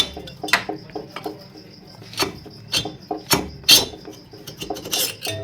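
Motorcycle engine parts clinking and knocking as the cylinder barrel is worked off by hand: about seven sharp metal taps, irregularly spaced.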